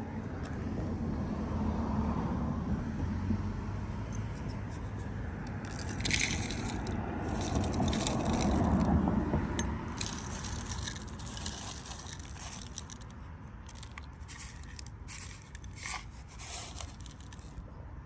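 Scraping, rustling and clicking handling sounds, as of a phone moving close along wooden fence boards, over a low rumble that swells twice.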